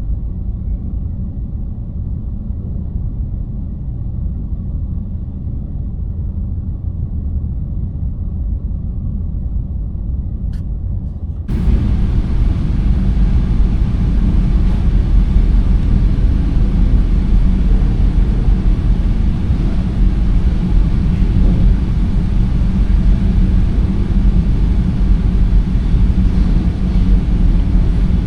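Steady low rumble of a passenger ferry under way. For the first eleven seconds or so it is dull and muffled, then it suddenly turns fuller and louder, with a hiss on top.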